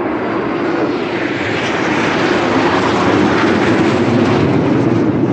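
A formation of military jet aircraft flying over. The engine noise grows louder over the first couple of seconds, then holds steady.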